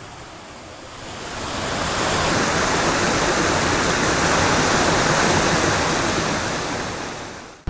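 Rushing water, a steady even hiss that fades in over the first two seconds and fades out near the end.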